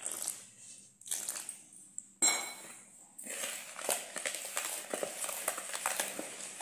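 Wire whisk stirring cake premix in a plastic bowl, its wires scraping and clicking against the bowl. The strokes come in short spells at first, with a sudden louder sound about two seconds in. From about three seconds in the stirring runs on in quick, dense strokes.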